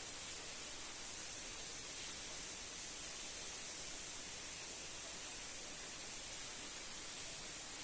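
Steady, high-pitched hiss of outdoor ambience, even throughout with no distinct calls or events.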